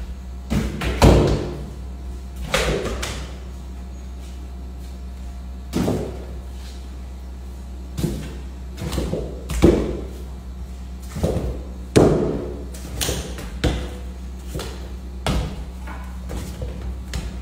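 A soccer ball being kicked and bouncing off the tiled floor and walls of a small bare room: about a dozen irregular thuds, each with a short ring, the loudest about a second in. A steady low hum runs underneath.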